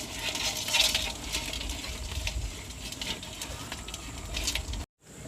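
Irregular clicking and scratchy rattling, a few sharper clicks every second or so over a low rumble, cutting off abruptly near the end.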